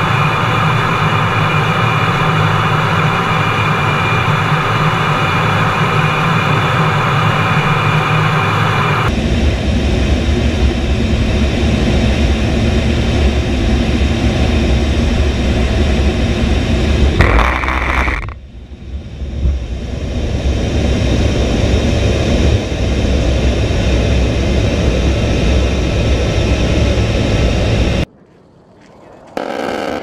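Loud, steady cockpit noise of an A-10 Thunderbolt II in flight: its twin TF34 turbofans and the rush of air, with a steady whine over the top. A brief, very loud burst lasting about a second comes about seventeen seconds in. The sound drops away abruptly near the end, where a short burst sounds.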